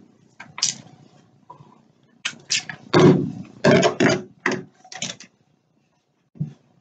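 Sounds of hair being detangled: a quick run of short, hissy swishes, several a second, from about two seconds in to a little past five, with one more near the end.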